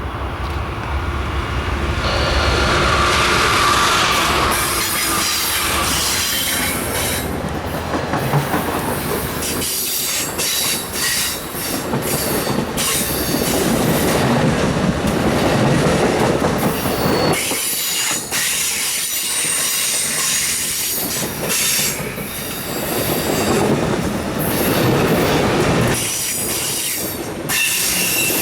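Amtrak passenger train (the westbound California Zephyr) rolling past at close range. A heavy low rumble fills roughly the first ten seconds, then the passing cars carry on with wheels squealing on the rails and a clickety-clack from the rail joints.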